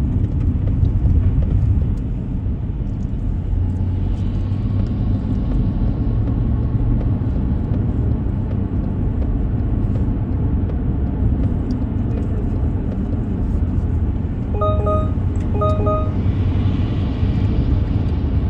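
Steady low rumble of a car driving. About fifteen seconds in come two short, pitched beeps, one second apart.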